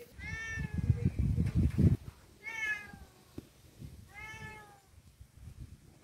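A cat meowing three times, about two seconds apart, each call short and rising then falling. Low rumbling thumps, loudest in the first two seconds, run under the first call.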